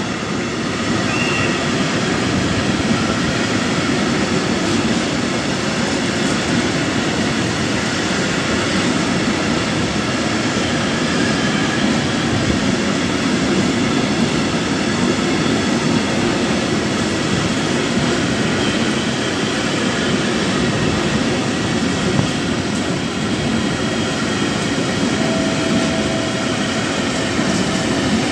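A freight train of rail tank wagons rolling past close by. Their wheels make a continuous, steady rumble on the rails.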